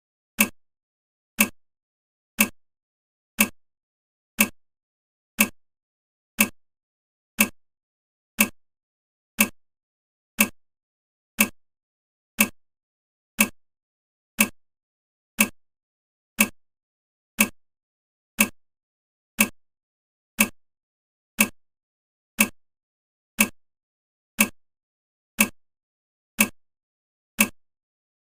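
Countdown timer's ticking sound effect: one short, sharp tick every second, evenly spaced and all alike.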